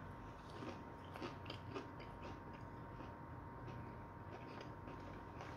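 Faint close-up chewing of crispy KFC popcorn chicken, with small crunches, most of them in the first couple of seconds.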